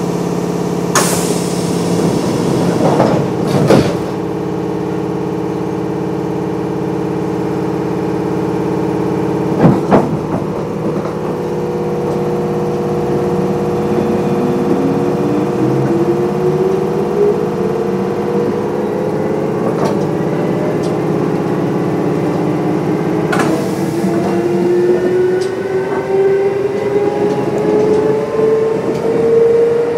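Kintetsu 8800 series electric train with field phase control standing with a steady equipment hum and a few sharp knocks, then pulling away: from about 13 seconds in, a traction motor whine rises steadily in pitch as it accelerates.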